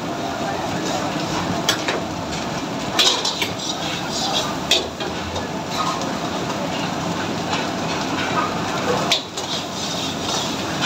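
Commercial kitchen noise: a steady rumble from the gas range and extraction hood, with a metal ladle clinking and scraping in a steel pan of curry and a few sharp clanks.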